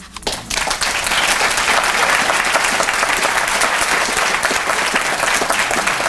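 Audience applauding, swelling within the first second and then steady.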